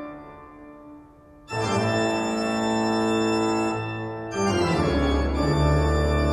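Organ music of slow, held chords: the first chord fades away, a new one enters about a second and a half in, and another just after four seconds.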